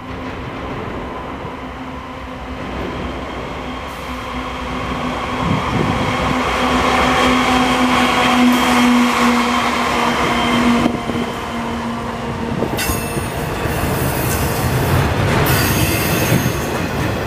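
Canadian Pacific GE ES44AC diesel locomotive approaching and passing with a steady engine tone, loudest as it goes by about eight seconds in. Double-stack intermodal container cars then roll past, with high-pitched metallic wheel squeal starting about thirteen seconds in.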